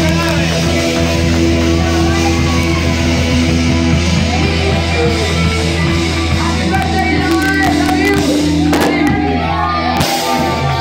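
Live rock band of electric guitar, bass and drums holding a long closing chord, with singers and crowd shouting and whooping over it; the band stops near the end.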